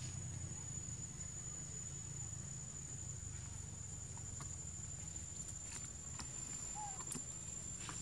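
Steady high-pitched insect drone over a low outdoor rumble, with a few faint ticks.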